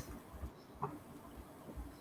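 Quiet room tone in a pause between speakers, with a few faint soft low thumps and one brief faint sound just under a second in.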